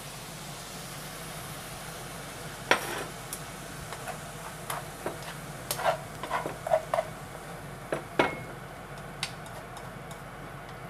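Chicken hearts sizzling in a sweet-spicy sauce in a frying pan, with a sharp knock a few seconds in, then a string of clicks and scrapes as chopsticks push the food out of the tipped pan onto a plate.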